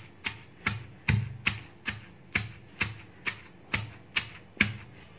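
Stone pestle pounding green chillies, peanuts, garlic and coriander in a stone mortar, about two dull knocks a second, stopping near the end. The mixture is being crushed to a coarse thecha.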